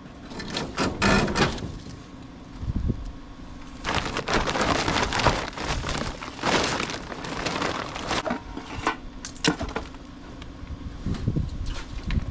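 Handling noise: irregular knocks and clatter with a longer stretch of scraping and rustling in the middle, as objects are picked up and moved about.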